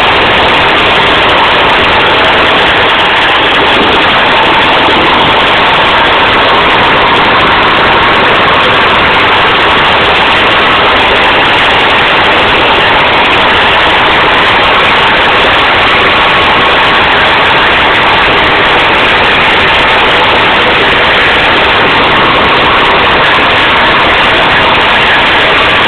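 OT-64 SKOT eight-wheeled armoured personnel carrier on the move over a rough dirt track, heard from on board: its Tatra V8 diesel and running gear make a steady, terribly loud din.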